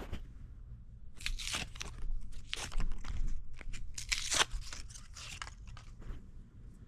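Product packaging being handled: irregular crinkling and rustling, busiest in the middle few seconds.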